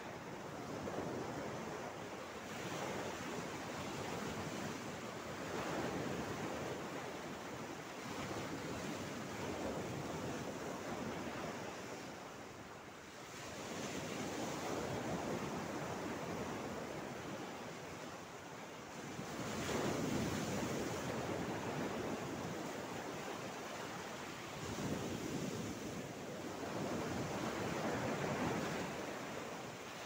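Sea waves washing and breaking over a flat rock ledge: a continuous rush of surf that swells and eases every few seconds. The heaviest surges come about two-thirds of the way through and again near the end.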